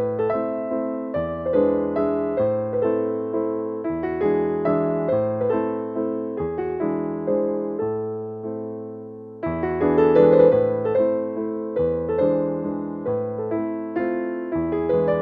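Background music played on piano or electric piano: a gentle melody over a repeating bass line, with a brief pause in the phrase about nine seconds in.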